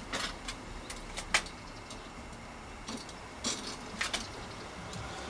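Scattered light clicks and taps, about seven in all, from bicycle front-end parts being handled while the bike is stripped down.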